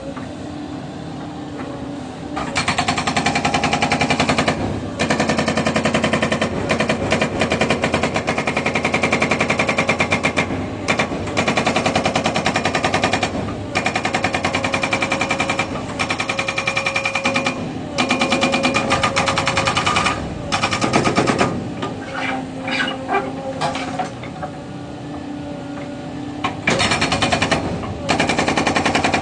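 Hydraulic breaker on a Caterpillar 307 excavator hammering in rapid runs of several seconds at a time. Between runs there are short pauses where only the machine's engine and hydraulics are heard.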